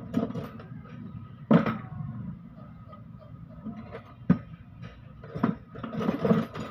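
Irregular sharp knocks and clanks of metal tools and parts being handled during truck gearbox repair work: four or five separate hits, with a short cluster of clatter near the end.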